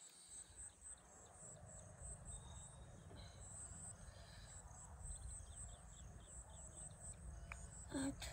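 Faint insects chirping in a steady high rhythm of about three chirps a second, over a low rumble.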